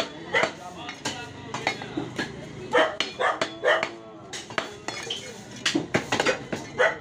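Butcher's knife clacking and scraping on a wooden chopping block as beef is sliced, a dozen or so short, sharp knocks, with voices in the background.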